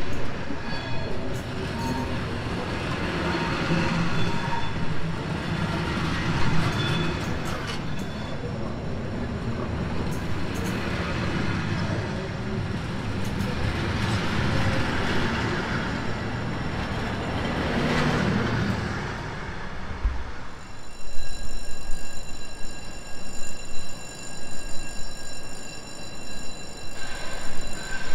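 Red SJ passenger coaches rolling slowly past and away on the rails, a steady wheel rumble with short high squeals, fading out about twenty seconds in. After that, several steady high tones and uneven bursts of noise remain.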